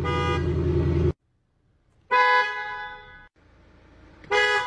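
Vehicle horn honking three times: a longer blast over engine rumble in the first second, then two shorter toots about two seconds apart, each fading away.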